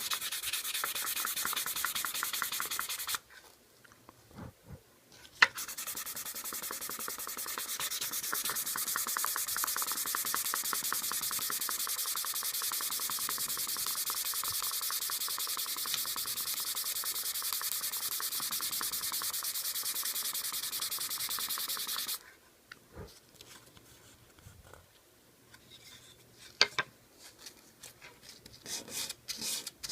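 Steady, even sanding of wood with a short pause after about three seconds and a few clicks in it. It stops about two-thirds of the way through, leaving a few light taps, then rhythmic back-and-forth rubbing strokes start near the end.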